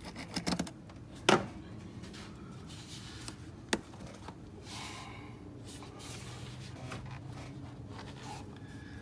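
Hands working among hoses and hose clamps in an engine bay: a few clicks and knocks, the sharpest about a second in and another just before four seconds, over a faint steady hum.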